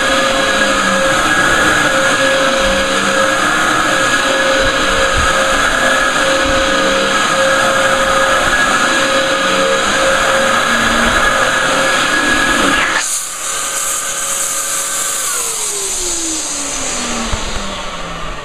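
A Dyson DC07 upright vacuum cleaner runs steadily with a high motor whine. About 13 seconds in, the rushing sound drops away sharply, and a few seconds later the motor's whine falls steadily in pitch as it winds down after being switched off.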